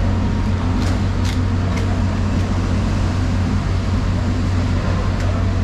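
A steady low mechanical hum under a wide noise haze, with a few short sharp clicks in the first two seconds and one more near the end.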